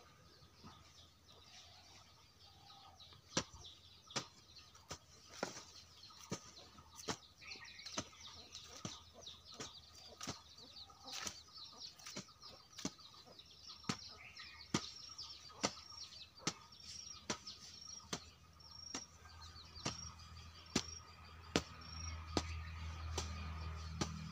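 A hoe blade chopping into soil in steady strokes, about one a second. A bird repeats a short high chirp through the second half, and a low rumble builds near the end.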